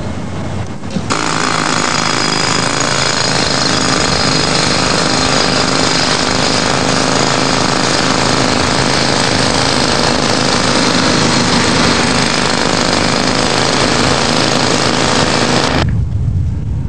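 Pneumatic jackhammer breaking pavement, running steadily and loudly. It starts suddenly about a second in and stops suddenly near the end. A low engine rumble is heard just before it starts.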